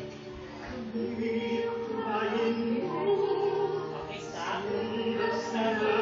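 Music with singing, with long held notes under the sung line.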